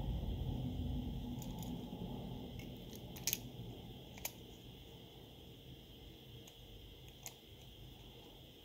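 Handling noise of small smartphone parts: a low rustle of hands moving the screen and frame that fades out, and a few sharp small clicks of plastic and metal parts and tweezers, the loudest about three seconds in.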